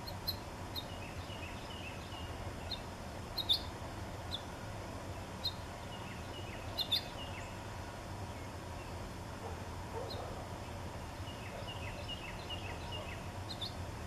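Small songbirds calling: three runs of rapid short chirps with scattered single high notes between them, and a couple of sharp ticks as the loudest sounds. A steady low hum lies underneath.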